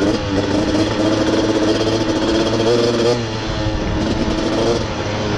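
Off-road vehicle engine running under way on a rough dirt track, its pitch rising and falling several times as the throttle opens and closes, with wind noise on the microphone.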